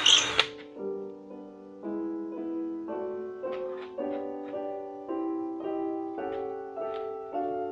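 Solo classical piano music, a slow melody of single held notes. A cordless drill runs in a short burst that stops about half a second in.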